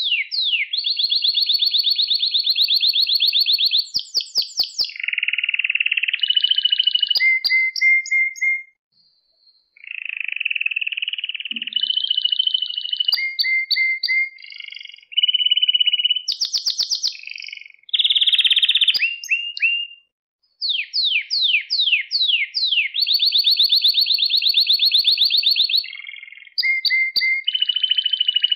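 Male domestic canary singing: long rolls of very fast repeated notes at a steady pitch, alternating with runs of quick downward-sweeping whistles. The song breaks off briefly twice, about a third and about two-thirds of the way through.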